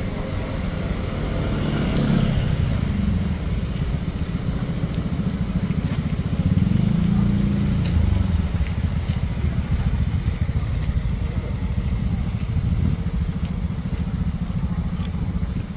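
Steady low rumble of road vehicles, engine and tyre noise, swelling a little about two seconds in and again around seven seconds.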